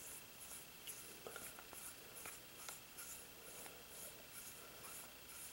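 Faint scratchy rubbing with scattered light clicks: a Dan Wesson Model 15 .357 Magnum revolver barrel being unscrewed by hand, its steel threads turning in the frame.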